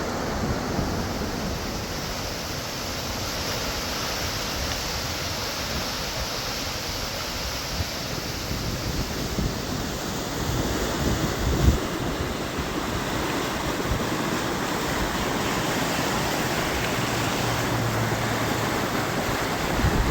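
Steady rushing of flash-flood water, with wind buffeting the microphone and one stronger gust thump about two-thirds of the way through.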